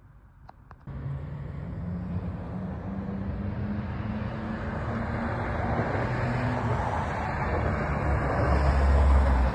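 Two quick clicks, then a steady vehicle rumble cuts in suddenly and grows gradually louder, with a heavy low rumble near the end.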